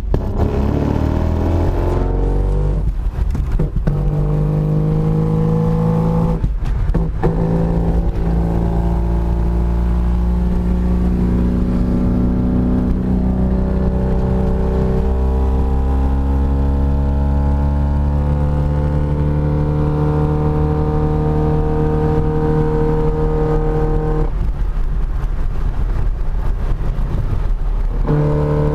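BMW E36 325is engine pulling under acceleration in the low gears. Its pitch climbs, breaks twice in the first several seconds for gear changes, rises slowly for a long stretch, then drops suddenly near the end. The car is being driven with a broken differential bolt that lets something smack in the driveshaft area.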